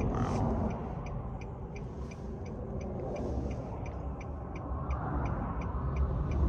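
A car's hazard-light flasher ticking evenly about three times a second over a steady low rumble, with the car stalled after running out of fuel.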